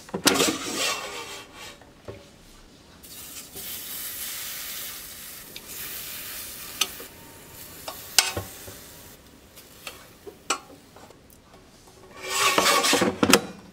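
An air fryer basket slides out with a scraping rattle. Slices of raw pork belly are laid into the preheated basket with metal tongs: there is a steady hiss of sizzling, broken by a few sharp clicks of the tongs on metal. Near the end the basket slides back in with another loud scraping rattle.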